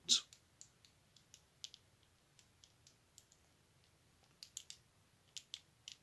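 Faint, irregular small clicks as a picked-open wafer lock and the picking tools are handled, with a closer run of clicks near the end.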